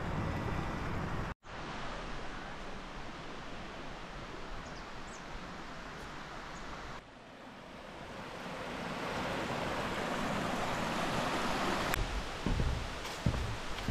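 Steady outdoor rushing noise with no clear pitch or rhythm, changing abruptly at cuts about a second and a half, seven and twelve seconds in, and swelling between the last two. Near the end come a few low thumps.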